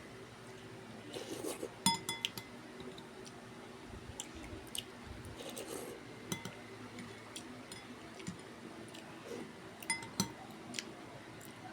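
Scattered clinks of eating utensils against a dish, a few sharper ones with a brief ring, over a faint steady hum.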